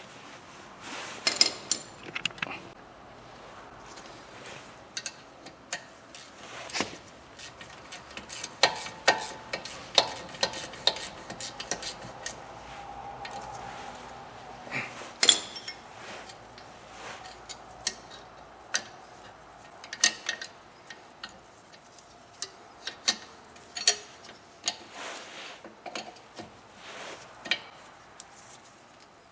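Hand tools clicking and clinking on metal at irregular intervals while the lower bolt of a rear brake caliper is tightened.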